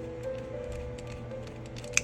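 Background music with steady held notes, over scattered light ticks and one sharp click at the very end.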